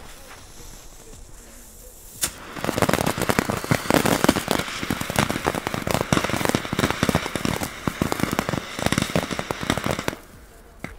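Keller (Komet) Vulkan Class 1 ground fountain spraying red crackling sparks: a sharp pop about two seconds in, then dense crackling for about seven seconds that stops suddenly near the end.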